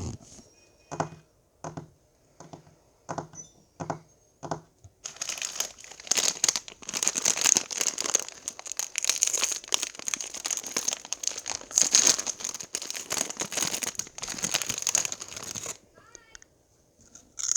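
Packaging crinkled and crumpled for ASMR: several light taps at first, then about eleven seconds of dense, continuous crinkling that stops abruptly near the end.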